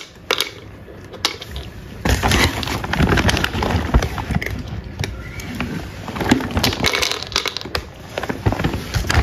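A cat crunching dry kibble from its bowl, close up: a quick, dense run of crisp chewing crackles that picks up about two seconds in.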